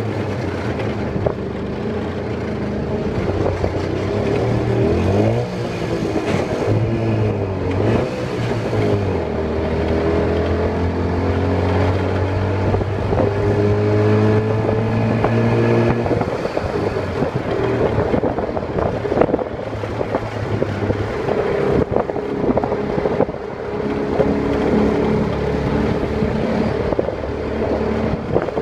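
Tuk-tuk engine running, heard from the open passenger cab over road and wind noise. Its pitch rises and falls a few seconds in, holds steady for several seconds, then varies again as it drives through traffic.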